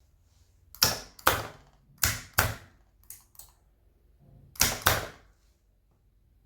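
Four pairs of sharp clacks, the two hits in each pair about a third of a second apart, the third pair fainter.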